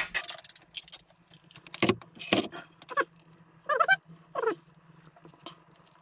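A dog whining in about three short whimpers that bend up and down, over sharp clicks and clatter of tools being handled on a workbench.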